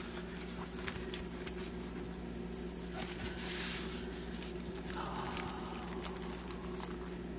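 Diamond-painting canvas unrolled from its tube, the canvas and its plastic cover film softly rustling and crinkling under the hands, with a steady low hum behind it.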